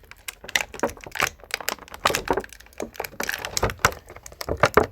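Irregular plastic clicks, snaps and crinkles from hands struggling to open action-figure packaging to get at the spare hands.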